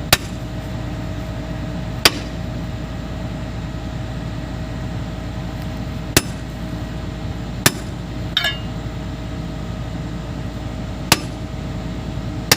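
Hammer striking steel on an excavator's track link, about six sharp, irregularly spaced metal blows with one ringing clang a little past the middle. A steady low hum runs underneath.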